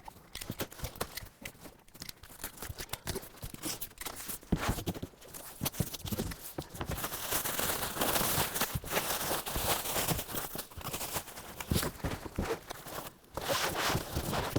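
Packaging being pulled off and cut away from a boxed bicycle: an irregular run of rustling and tearing with sharp clicks and knocks. It is densest around the middle and again just before the end.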